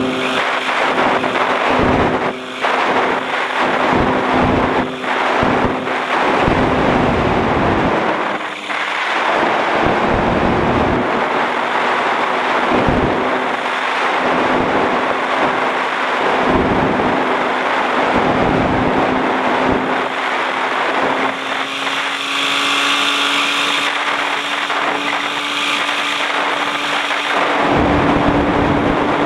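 A small aircraft's engine and propeller drone steadily in flight, with the pitch rising slightly over the second half. Wind buffets the microphone throughout, and the rushing gets brighter and hissier for a few seconds near the end.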